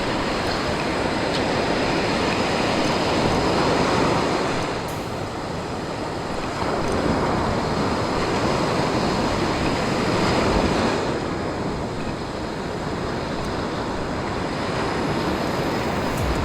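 Ocean surf washing onto a sandy beach, with wind noise on the microphone; the wash swells louder about four seconds in and again around ten seconds.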